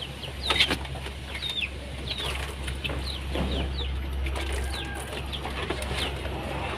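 Birds chirping: short, high, falling chirps about two a second, over a steady low hum.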